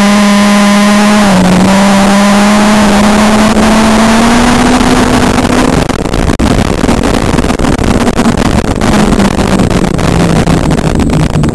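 Street stock race car's engine heard from inside the cabin, loud and distorted, its pitch climbing slowly with a brief dip about a second in. From about six seconds in the sound turns rough and crackly and the pitch drops lower and wanders.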